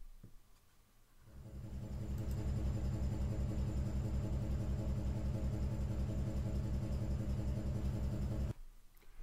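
Pump of a Reihmann RHM ATF 6000 automatic-transmission fluid exchange machine starting about a second in and running with a rapid low pulsing, then cutting off suddenly near the end. It is pumping the cleaning additive into the car's automatic gearbox.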